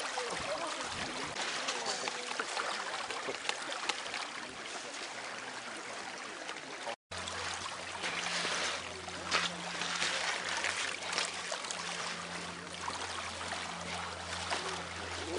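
Sea water washing and lapping at the shore, with faint distant voices. After a momentary dropout about seven seconds in, a steady low hum runs underneath.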